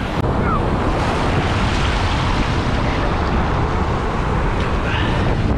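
Surf breaking on the beach, with wind buffeting the microphone: a steady, dense rushing noise.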